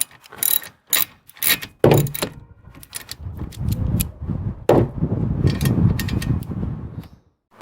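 Socket wrench with a 13 mm socket loosening the nut that holds a car's windscreen wiper arm: a run of sharp metal clicks and knocks, then a longer stretch of rapid rough clicking.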